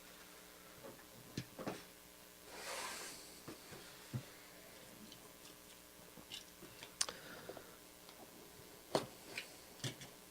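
Faint handling of a jersey box and its packaging: scattered light clicks and taps, with a brief rustle about three seconds in.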